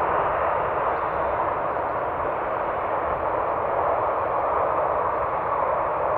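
Boeing 737-800 business jet's CFM56 turbofan engines running at low taxi power as the jet lines up on the runway: a steady, even rushing noise.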